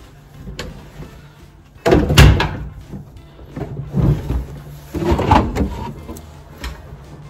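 Close handling noise: cloth rustling and dull knocks as someone moves and handles things right up against the microphone. The loudest burst comes about two seconds in, with more around four and five seconds in.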